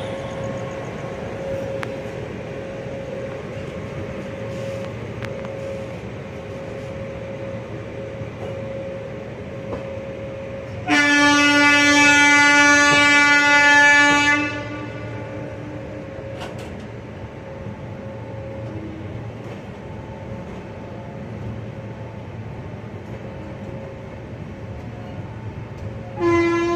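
Steady running noise of a passenger train at speed, heard from aboard a coach. About eleven seconds in, a locomotive air horn sounds one long blast of about three and a half seconds. A short horn toot follows near the end.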